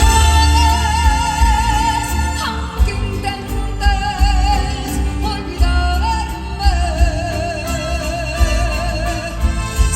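Live band playing a slow ballad, with a woman's lead voice holding long notes with wide vibrato over a strong, steady bass, heard through a concert sound system.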